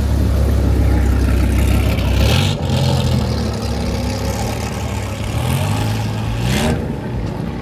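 Dodge Viper V10 engine running with a deep exhaust note. Its pitch climbs twice, about two seconds in and again near the end, as it revs up.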